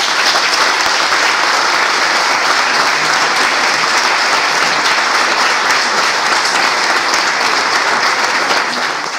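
Audience applauding steadily, a dense, even clapping that fills the hall.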